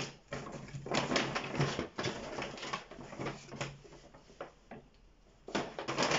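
Brown paper takeout bags rustling and crinkling as hands rummage through and lift them, in irregular bursts, with a quieter moment about a second long before a last burst of rustling.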